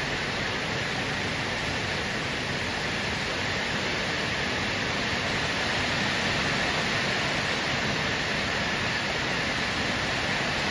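Heavy rain pouring down steadily, an even, unbroken hiss of a downpour.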